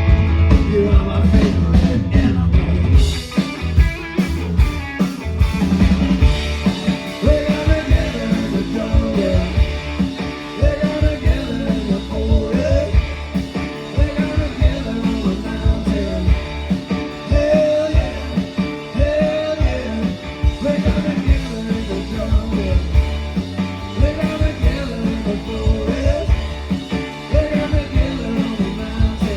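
Rock band playing live, a stretch without clear lyrics, with a steady drum beat under guitars and bass.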